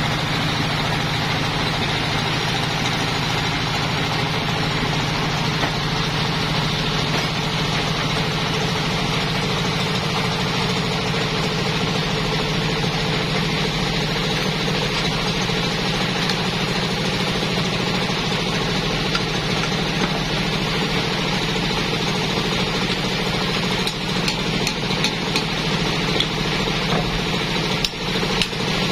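Sawmill band saw machinery running steadily with an unchanging engine-like hum while no log is being cut. Near the end, irregular knocks and clicks come in as the log carriage's clamping dogs are worked by hand.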